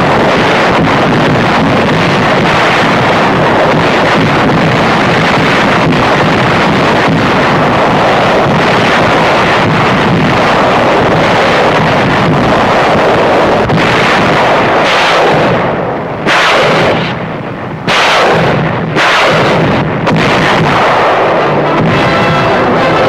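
Naval guns firing in a shore bombardment: a dense, unbroken rumble of gunfire and shell blasts, with a few sharper blasts standing out in the last several seconds.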